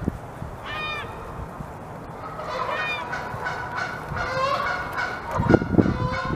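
Beavers gnawing and chewing wood from a peeled log, with a cluster of loud crunching bites near the end. Geese honk several times in the background.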